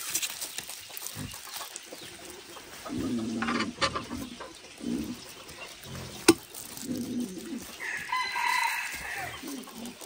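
Chickens clucking on and off, with a rooster crowing once near the end. A single sharp knock about six seconds in.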